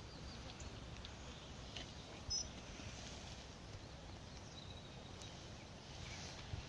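Faint outdoor ambience by the water: a low steady rumble of wind on the microphone, with a few short, high bird chirps, the clearest about two seconds in.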